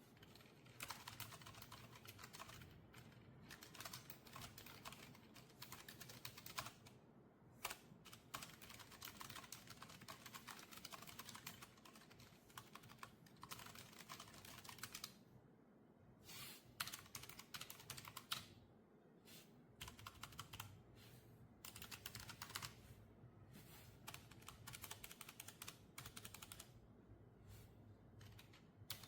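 Rapid typing on a Logitech low-profile mechanical gaming keyboard: fast, quiet key clicks in long runs, with a couple of brief pauses.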